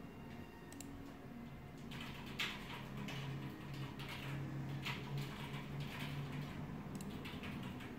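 Faint clicks and several short scratchy rustles, about a second apart in places, over a low steady hum.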